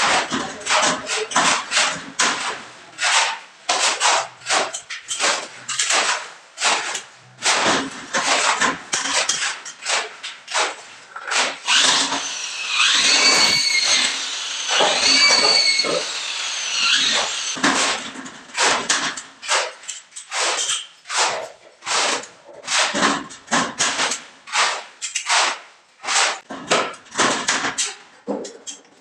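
Rhythmic strokes of a hand tool working the fibre-cement board and metal stud, about two a second. In the middle a corded power drill runs twice, its whine rising and falling as it drives screws into the metal stud.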